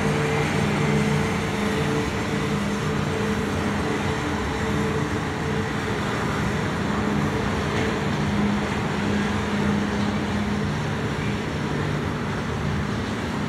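Double-stack intermodal freight train's well cars rolling past: a steady rumble of steel wheels on the rails with a steady low hum, which fades near the end.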